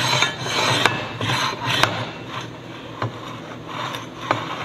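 Metal gears cut on the CNC plasma table meshing and being worked against each other, teeth rubbing and rasping in uneven strokes about twice a second, with a few sharp clicks.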